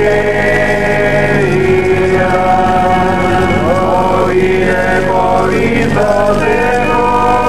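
Liturgical chant sung in long held notes that slide from one pitch to the next, over a steady low drone.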